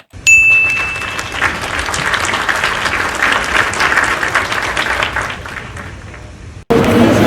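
A single bright ding lasting about a second, then a crowd applauding, the clapping thinning and fading before it is cut off abruptly near the end.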